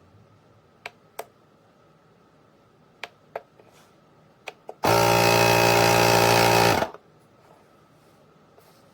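A small motor buzzes loudly and steadily for about two seconds, about five seconds in, after three pairs of light clicks.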